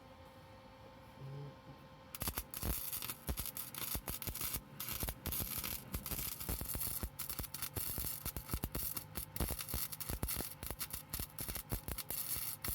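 Flux-core wire-feed welder arc welding on an exhaust pipe: a dense, irregular crackle and sputter that starts about two seconds in.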